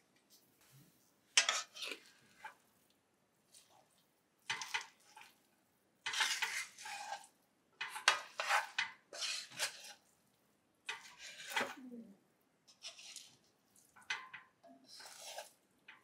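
Wooden spatula scraping against the inside of a Staub enamelled cast-iron pot while mixing cooked rice, in about seven short, irregular strokes with brief pauses between.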